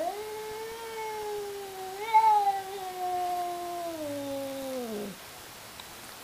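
Tabby house cat caterwauling at a rival cat: one long, drawn-out yowl that swells about two seconds in, then sinks in pitch and breaks off about five seconds in. It is a territorial threat call in a standoff.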